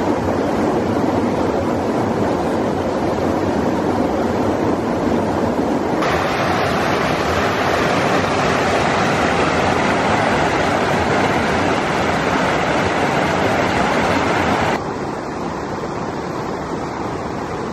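A mountain river rushing steadily over rocks, as a loud, even noise. It shifts suddenly about six seconds in and again near the end, when it gets quieter.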